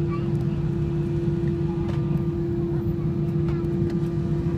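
Cabin noise inside a Boeing airliner on the ground just after landing: the engines and air system running steadily, a constant hum over a low rumble.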